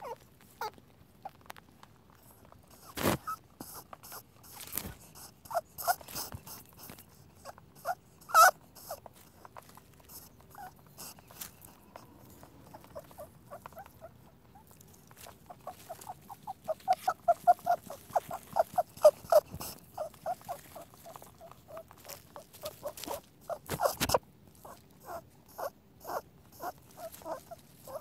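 Rabbit making short squeaks and clicks. Sharp clicks are scattered throughout, and a fast run of quick squeaks, about six a second, comes a little past the middle.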